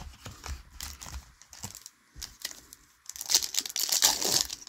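Foil wrapper of a MetaZoo Topps Chrome booster pack rustling in the hands with small clicks as it comes out of the box, then crinkling loudly as it is torn open about three seconds in.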